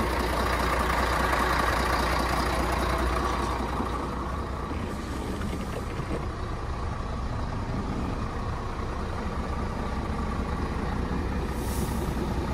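Scania P114's 11-litre six-cylinder diesel engine idling steadily. Its rumble drops a little in level about a third of the way in. A short hiss comes near the end.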